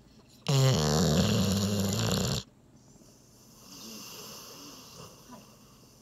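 Yellow Labrador Retriever snoring in deep sleep: one loud snore about half a second in, lasting about two seconds, then a softer breathy exhale.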